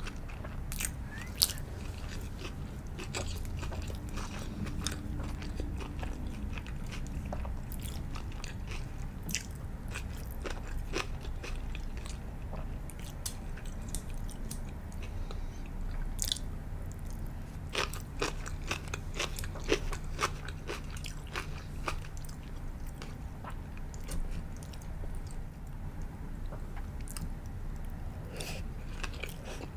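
Close-miked eating of sushi: biting and chewing with many small crisp crunches and clicks, a couple of sharper crunches standing out, about a second and a half in and around the middle.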